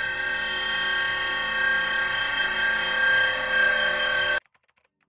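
Loud electronic sci-fi machine drone: a dense, high whine of many steady layered tones that cuts off abruptly about four seconds in.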